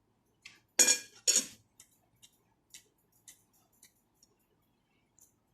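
Spoon and utensils clinking against a soup bowl twice in quick succession about a second in, followed by scattered faint clicks of eating.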